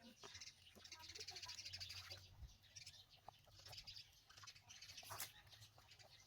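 Faint high-pitched bird chirping in waves, with one sharp click about five seconds in.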